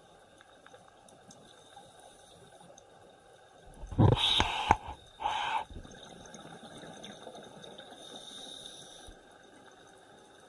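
Scuba diver's exhaled bubbles leaving the regulator underwater, in two loud rushes about four seconds in, the first about a second long and the second shorter. Between them a faint steady hiss with a thin high whine.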